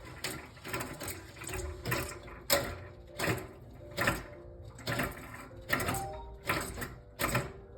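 Steam radiator pipes banging, a string of about ten sharp knocks at uneven spacing, roughly one a second, some louder than others. The banging started after a new boiler was installed.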